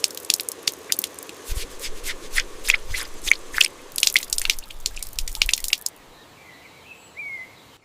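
A run of irregular sharp crunching clicks, stopping about six seconds in, then a faint short chirp near the end.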